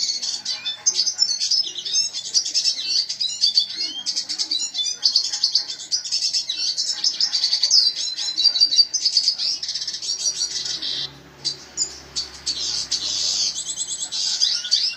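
Red siskin singing continuously: a fast, twittering stream of high chirps and trills, with a short lull about eleven seconds in.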